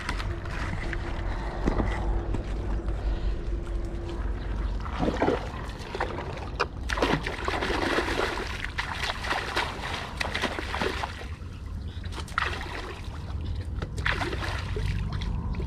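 Shallow water splashing and sloshing in irregular bursts as mud is washed off by hand, over a steady low rumble.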